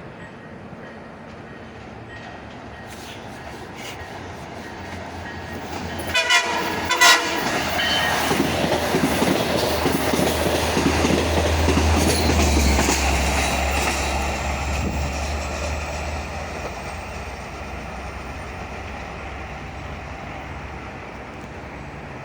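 Horn of a Long Island Rail Road C3 bilevel cab car sounding two short blasts about six and seven seconds in, then the train passing close by with heavy wheel-on-rail noise and a low rumble that peaks and then fades away.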